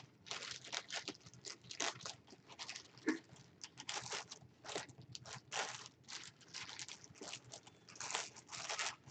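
Quiet, irregular rustling and crinkling of plastic and paper packaging being handled, in many short strokes.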